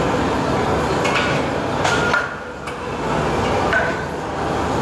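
Loaded barbell being racked onto the bench-press uprights: sharp metallic clanks with a short ring, about a second in, near two seconds and again near four seconds, over a steady background rumble.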